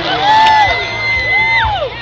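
A crowd of spectators cheering and whooping, many voices rising and falling at once. One high whistle is held for over a second and then drops away.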